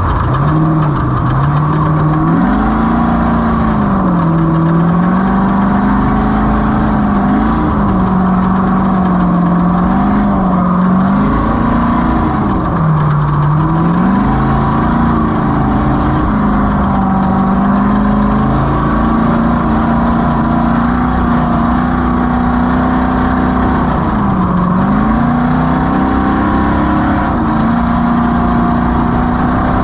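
Off-road race vehicle's engine running hard under a steady low rumble, its pitch dropping and climbing again several times as the driver lifts and gets back on the throttle, then holding steady for long stretches.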